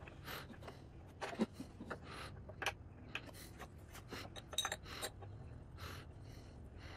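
Light, scattered clinks and scrapes of a metal tube-type spark plug wrench knocking against the plastic case and spark plug well of an inverter generator as it is worked down into the top access hatch.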